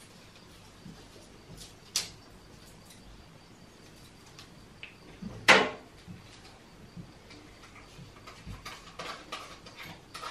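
Hand tools and small objects being handled at a kitchen wall and sink: a sharp knock about two seconds in, a louder clack about halfway, then a run of light clicks and taps near the end.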